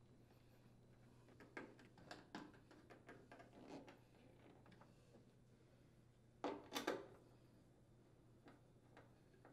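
Faint clicks and scrapes of a hand screwdriver driving the mounting screws of a dryer door hinge, with a louder cluster of clicks about six and a half seconds in.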